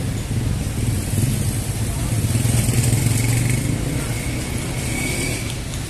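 Street traffic, with a motor vehicle's engine passing close by. It is loudest from about two to three and a half seconds in.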